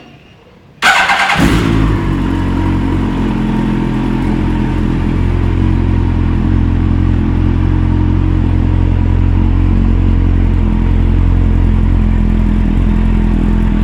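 Yamaha R1 inline-four motorcycle engine with a Two Brothers Racing aftermarket exhaust starting up about a second in, then idling steadily.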